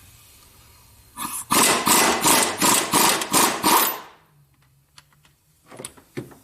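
Impact wrench hammering on an engine bolt for about two and a half seconds, a loud rattling run that pulses about three times a second, then winds down.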